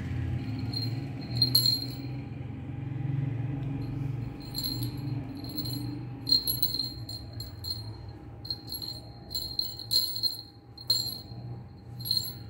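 A small jingle bell on a short chain tinkles in short, irregular jingles as a kitten bats and paws it around. The jingles are sparse for the first few seconds and come thick and fast after that, over a steady low hum.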